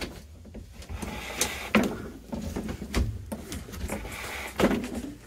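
Irregular dull knocks and thumps on boarded loft flooring as someone moves about, with a few louder knocks spread through.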